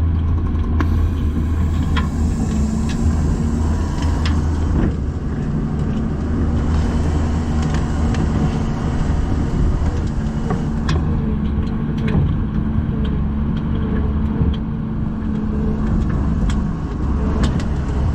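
Truck engine running steadily while driving, with scattered short knocks and rattles.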